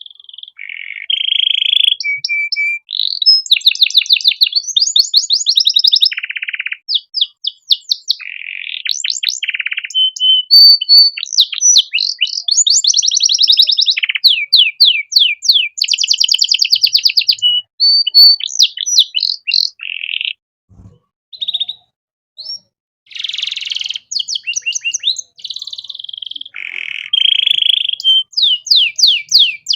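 Male canary singing a long, varied song: fast trills of rapidly repeated notes, buzzy rolls and short whistled notes, one phrase running into the next. The song breaks off for about two seconds roughly two-thirds of the way through, then picks up again.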